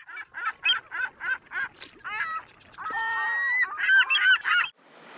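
A run of goose-like honking calls, about three a second at first, then one longer held call and a few more quick honks, cut off abruptly near the end.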